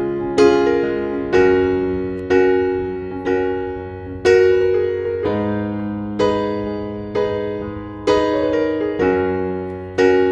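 Background music on electric piano: slow, gentle chords, a new one struck about once a second and left to ring and fade.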